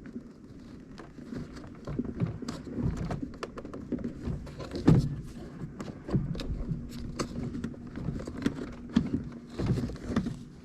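Irregular plastic clicks, taps and rustling as hands work the door-lever cable loose from its latch behind a removed car door panel, with one sharper knock about halfway through.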